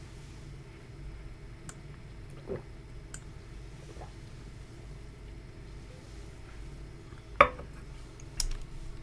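A few scattered sharp clicks and knocks over a steady low hum, the loudest knock about seven and a half seconds in.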